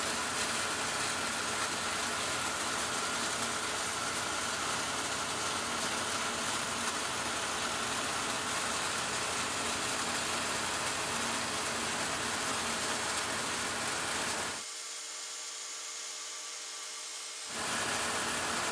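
Several gas-shielded wire-feed (MIG) welding heads of an internal pipeline welding clamp arcing at once around the inside of a 36-inch pipe joint: a steady hiss. About three-quarters of the way in, the sound drops quieter and thinner for about three seconds, then returns.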